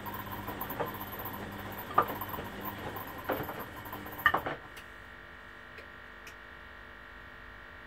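Beko front-loading washing machine drum tumbling a wet wash load: laundry sloshing and dropping with several soft knocks, until the drum stops about four and a half seconds in, leaving a faint steady hum.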